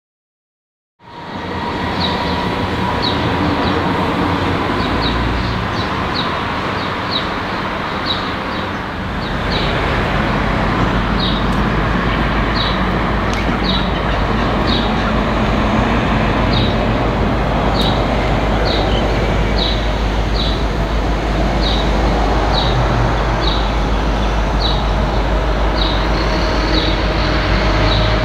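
G class diesel-electric locomotive running light engine on its approach, a low engine rumble that grows stronger from about nine seconds in. Sound begins about a second in, and short high chirps repeat roughly twice a second over it.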